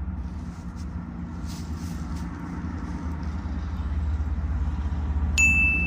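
A motor vehicle's engine rumbles past, growing louder toward the end. Shortly before the end, a single high, bell-like ding sets in sharply and rings on steadily.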